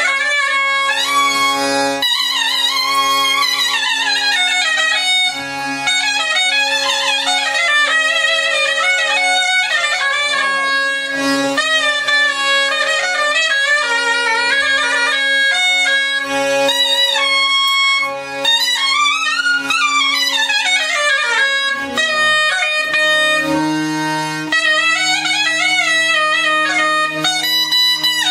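A balaban (Azerbaijani double-reed pipe) playing a flowing, ornamented folk melody over a steady held drone note. The drone changes pitch about 23 seconds in.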